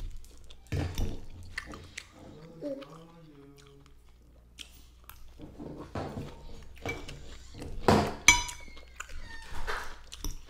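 Close-miked chewing and biting of a salad and chicken meal, with short sharp clicks of a utensil against the dish.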